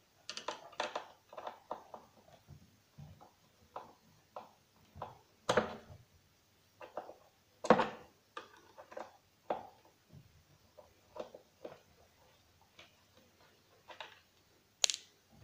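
Irregular clicks and knocks of a screwdriver and hands working at the screws of an old Sony record deck's wooden cabinet, with two louder knocks about five and a half and seven and a half seconds in.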